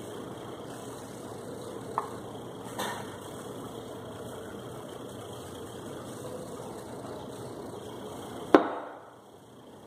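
Steady low machine hum with a couple of light clicks, then one sharp knock about eight and a half seconds in, after which the hum drops away.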